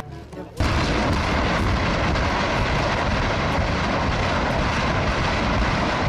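Rocket engine firing: a loud, steady rushing noise that starts about half a second in, after a brief dip.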